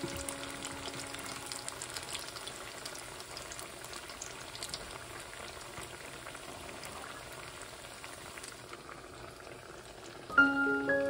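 Sabudana vadas deep-frying in hot oil in a cast iron pot: a steady sizzling and crackling of bubbling oil that slowly grows quieter. A ringing music note fades out at the start, and bright mallet-struck music notes come in near the end.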